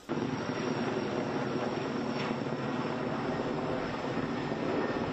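Erickson S-64 Air-Crane heavy-lift firefighting helicopter flying overhead: steady, loud rotor and turbine engine noise that cuts in suddenly just after the start.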